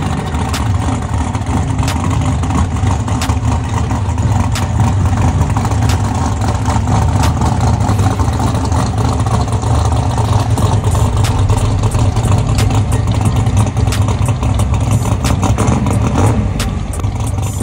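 A car engine running loudly and steadily, with many sharp ticks and pops over it.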